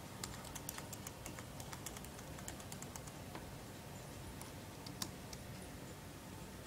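Typing on a computer keyboard: a quick run of key clicks over the first few seconds, then a few scattered keystrokes, with one sharper click about five seconds in.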